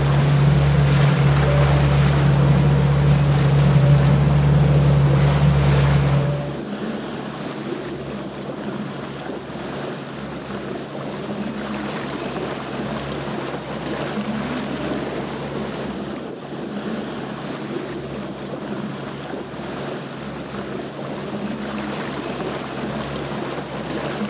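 Motorboat engine running with a steady low hum over the rush of water and wind. About six seconds in the hum stops abruptly, leaving the wash of water against the moving hull and wind on the microphone.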